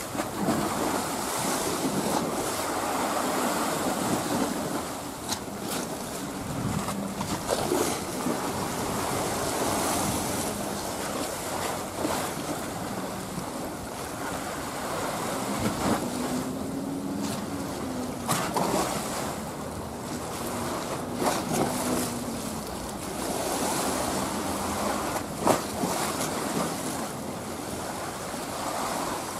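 Steady wash of choppy sea water with wind buffeting the microphone, broken by a few short splashes or knocks. A faint wavering hum rises and falls a little past the middle.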